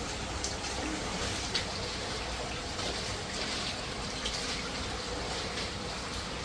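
Steady trickling, rushing water with scattered faint drip-like ticks.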